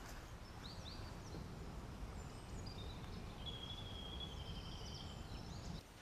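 Low, steady wind rumble on the microphone, with small woodland birds calling over it: a few short falling chirps about a second in, then a long, thin, high call through the middle.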